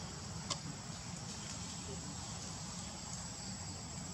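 Outdoor forest ambience: a steady high-pitched insect drone over low background rumble, with one sharp click about half a second in.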